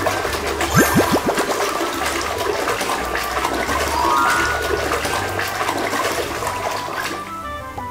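Water churning and splashing as a toy animal figure is swished vigorously around a tub of water, with a few bubbling gurgles about a second in. The churning eases just before the end.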